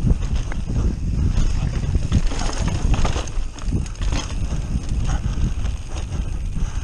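Mountain bike descending a bumpy grassy trail: wind rumbling on the camera microphone, with irregular knocks and rattles from the bike as it rolls over the bumps.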